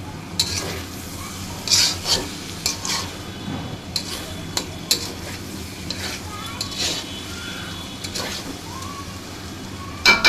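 A cooking utensil stirring and scraping in a pot of frying curry, in irregular short strokes over a faint sizzle, with a sharp metal clank that rings briefly near the end.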